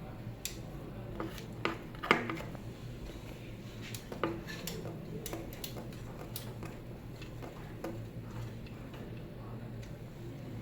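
Scattered small clicks and taps of hands fitting cable connectors and parts inside a hematology analyzer, the sharpest about two seconds in, over a steady low hum.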